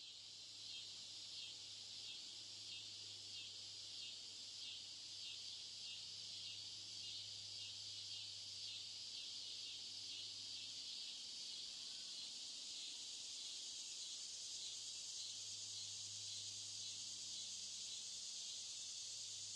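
Insects chirring in a faint, steady, high-pitched chorus with a fast pulsing trill.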